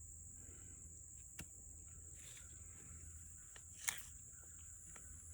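Faint, steady high-pitched chirring of insects such as crickets, with a couple of small clicks, the loudest about four seconds in.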